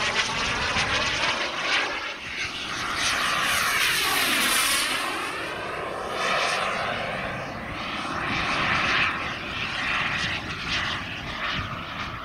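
Wren 160K Pro turbine of a large radio-controlled sports jet in flight: a steady jet roar and whine. It swells with a sweeping, phasing tone as the model passes about four to five seconds in, swells again later, and fades a little near the end.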